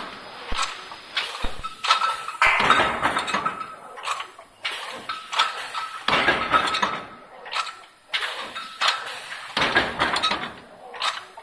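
Mechanical power press with a 2D transfer system running, clanking and clattering metal in a repeating cycle of loud bursts roughly every two seconds, with sharp knocks between.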